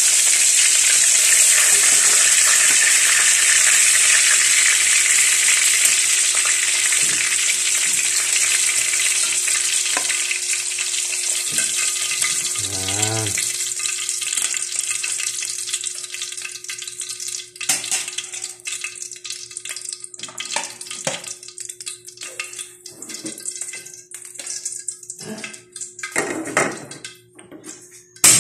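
Hot oil sizzling in a wok of fried tilapia, dying away over the first half as the burner has been turned off. After that, scattered metal spatula scrapes and knocks against the wok and plate, and one sharp click at the very end.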